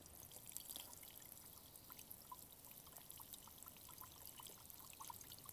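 Faint, steady sprinkle of water from a plastic watering can's rose falling onto grass and into two glass jars, with many small scattered drop sounds.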